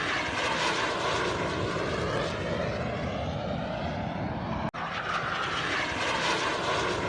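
Aircraft engine noise in flight: a steady rush with slowly sweeping shifts in pitch as the aircraft passes. It cuts out for an instant a little past halfway.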